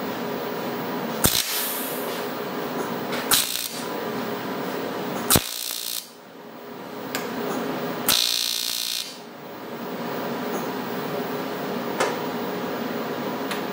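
TIG welder working on a cast aluminum part: a steady electrical hum, broken by sharp crackling bursts as the arc strikes, five times, the fourth lasting about a second.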